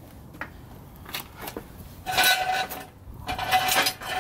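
Car jack being worked under a car: a few light clicks, then two long metallic squeaking, grating strokes about a second apart.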